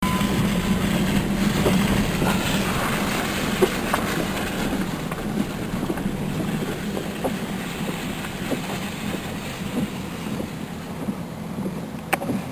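A steady low mechanical hum with many scattered clicks and rattles, like a vehicle rolling over rough ground. It starts abruptly and slowly fades.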